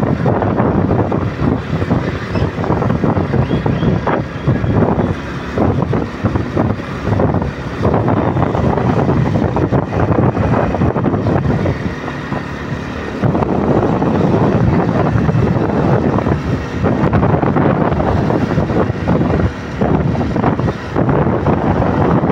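Wind rushing and buffeting over the microphone of a moving motorcycle, mixed with the bike's running engine and road noise. It eases briefly about twelve seconds in, then picks up again.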